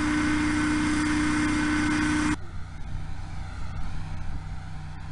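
Recording of a typical light cruising hovercraft at about 83 dBA: its engine and fans give a steady drone with a strong low hum and a higher whine. A little over two seconds in, it cuts abruptly to a recording of a purpose-built quiet hovercraft with the same engine, a softer, duller drone about 12 dBA quieter.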